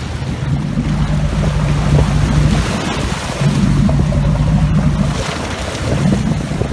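Fishing boat's engine droning underway, with water rushing along the hull and wind buffeting the microphone; the engine hum dips out twice as the wind gusts over it.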